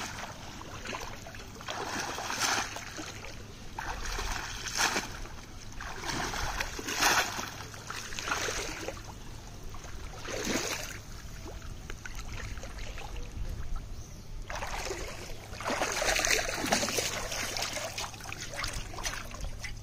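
Pond water splashing and sloshing as a conical bamboo fish trap is plunged into shallow muddy water and a wading person works it by hand, with a splash every two seconds or so. A quieter lull past the middle is followed by a longer stretch of sloshing.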